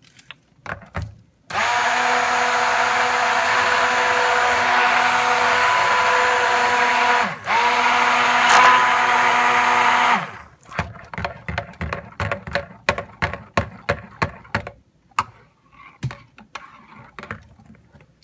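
Stick blender running in cold-process soap batter for about nine seconds, stopping and starting again briefly partway through. It is followed by a run of quick light knocks and clicks.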